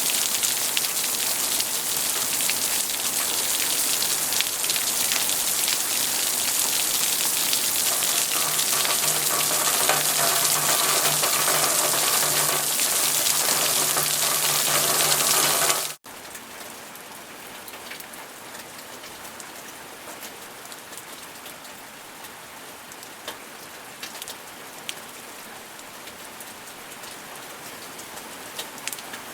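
Steady heavy rain, a dense even hiss, that cuts off abruptly about halfway through. It gives way to a much quieter, lighter rain in which separate drops can be heard ticking.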